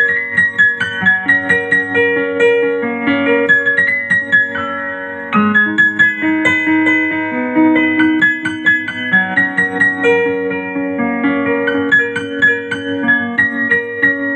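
Solo piano music played on a digital keyboard with a sampled Yamaha CFX concert grand piano voice: a melody over chord accompaniment, easing off briefly about five seconds in before a new phrase comes in with lower notes.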